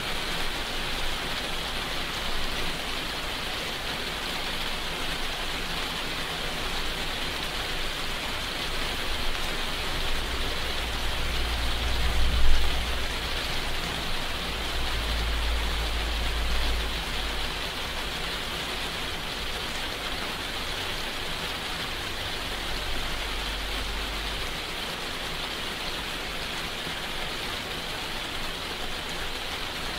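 Steady heavy rainfall hissing evenly. A deep low rumble swells up about a third of the way in, with a brief louder moment, and fades again; it returns more softly later.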